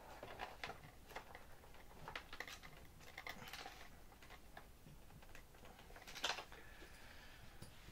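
A hand screwdriver turning a small screw down into the plastic tail mount of an RC airplane: faint, irregular clicks and ticks, with one louder click about six seconds in.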